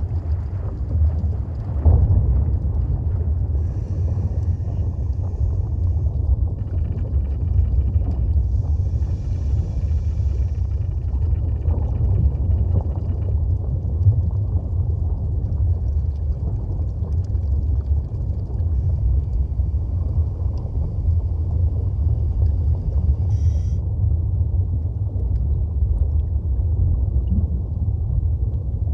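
Underwater reef ambience: a steady low rumble, with faint higher tones coming and going in the first half.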